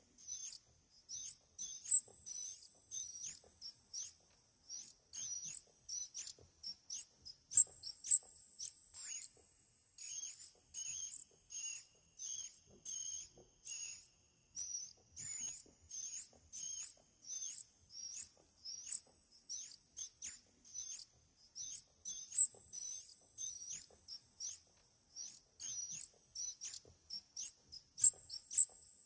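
A squirrel call: a steady run of very high-pitched, squeaky chirps, two or three a second, each a short hooked glide in pitch.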